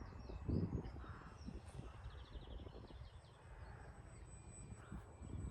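Wind rumbling on the microphone, rising and falling, with a few faint bird chirps.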